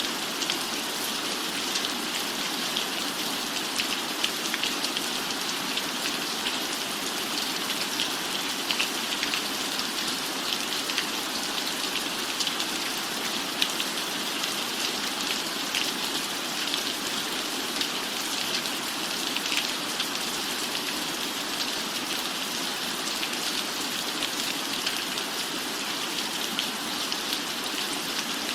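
Steady rain falling: an even hiss with many small, sharp drop hits scattered through it.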